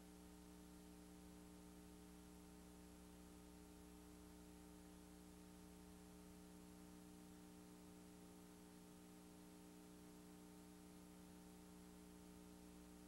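Near silence: a faint, steady electrical hum with a low hiss underneath, unchanging throughout.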